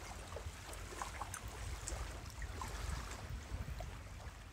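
Outdoor ambience: an uneven low rumble of wind on the microphone, with faint scattered ticks and short chirps.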